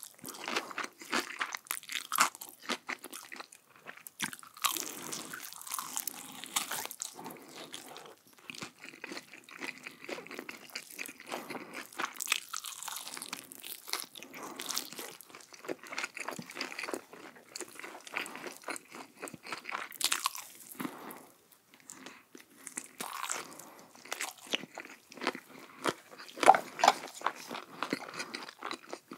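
Close-miked eating: a person biting and chewing crunchy food, in dense, irregular crunches with short pauses between mouthfuls.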